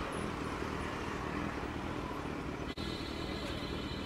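Kawasaki Z900 inline-four engine running at low speed in slow street traffic, with road noise. The sound drops out for an instant about two-thirds through and comes back with a faint high steady tone.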